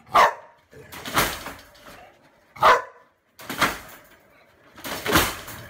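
Bulldog barking inside a wire crate: five loud barks spaced about a second apart.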